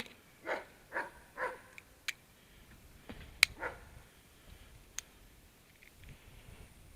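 A dog barking three quick times, about half a second apart, then once more about three and a half seconds in. A few sharp clicks come between, the loudest right before the last bark.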